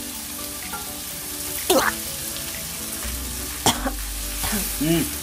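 Fried chicken being stir-fried in sauce in a wok: steady sizzling as a silicone spatula scrapes and turns the pieces, with two sharper knocks of the spatula against the pan.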